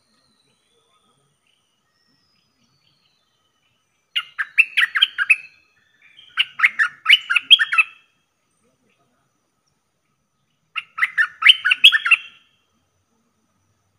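A caged decoy bulbul calling in three bursts of rapid chattering notes, each a second and a half to two seconds long, with quiet gaps between.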